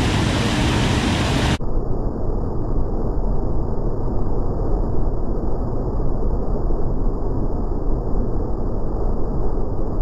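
Waterfall pouring over a rock ledge into a churning pool: a steady rush of falling water. About a second and a half in, the sound suddenly turns dull and muffled, losing its hiss, while the low rumble carries on.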